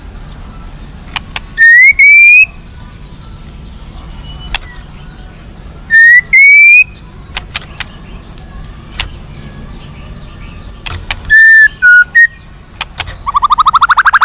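White-rumped shama (murai batu) singing loud, clear whistled phrases that rise in pitch, in pairs twice and then three short notes. Near the end it breaks into a fast rapid trill.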